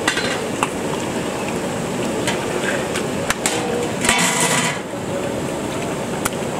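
A metal ladle clinking and scraping against a large aluminium cooking pot and a wok of hot oil: a few sharp strikes, then a louder scraping rush about four seconds in. Under it runs the steady hiss of a gas burner.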